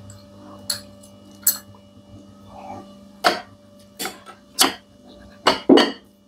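Eating sounds at a meal: a run of about seven sharp, irregular clicks and taps, the loudest coming in quick succession near the end, over a faint steady hum.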